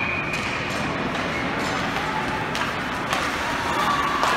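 Ice hockey rink ambience during play: a steady wash of noise with a few scattered sharp clacks and faint distant voices.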